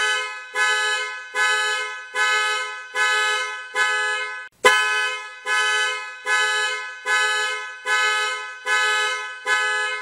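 Car alarm honking the horn over and over, about one honk every 0.8 seconds, each honk fading away; the honking breaks off briefly about halfway through and starts again.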